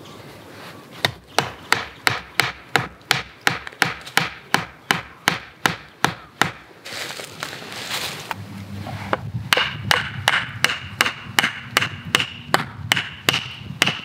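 Hatchet head pounding a sharpened wooden stake into the ground: two runs of steady knocks, about three a second, with a short pause between.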